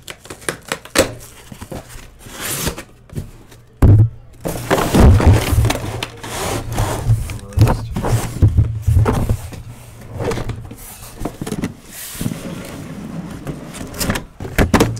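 A taped cardboard shipping case being cut and torn open: ripping tape, scraping cardboard and a heavy thunk about four seconds in, followed by a long stretch of loud tearing and rustling.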